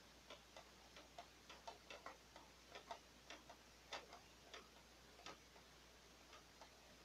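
Faint, irregular small clicks of plastic printer parts being pressed and handled, as the paper-path sensor lever and its lock in a disassembled inkjet printer are pushed into place and checked.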